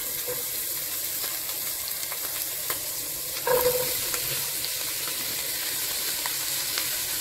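Diced onion sizzling in hot oil and butter in a stainless steel pot. About three and a half seconds in, chopped carrot and celery are tipped in with a brief louder clatter, and the steady sizzling carries on.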